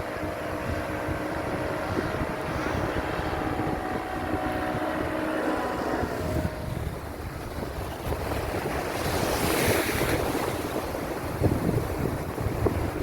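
Sea waves washing onto the beach, with wind buffeting the microphone; a louder rush of surf comes about nine to ten seconds in. A steady motor hum sounds underneath during the first half and fades out about six seconds in.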